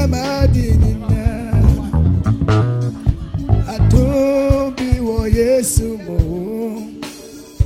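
Music with a singing voice over guitar and bass guitar; the heavy bass notes drop away after about three seconds, leaving mostly the voice.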